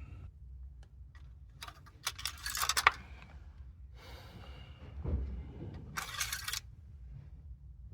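Engine oil dipstick being handled: two short metallic rattling scrapes, about two seconds in and again about six seconds in, as it is pulled from and slid back into its tube to recheck the oil level.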